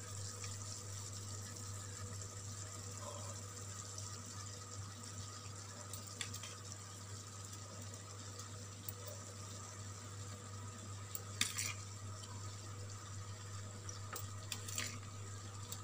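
Steady low hiss of a wok of shrimp masala cooking on a low flame, with a few brief scrapes as a spoon spreads boiled rice over it.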